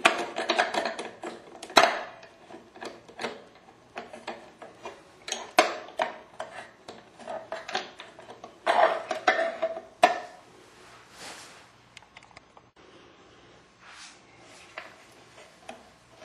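Small plastic and metal parts clicking, rattling and scraping as a screwdriver starts and drives the mounting screw of a replacement timer motor on a Fleck 5600 water-softener control valve. The handling is busiest in the first ten seconds, then drops to faint occasional ticks.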